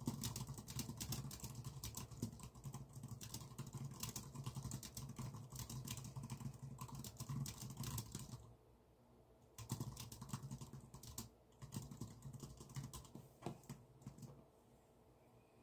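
Typing on a computer keyboard: a fast, dense run of key clicks, a pause of about a second just past the middle, then more scattered keystrokes that stop shortly before the end.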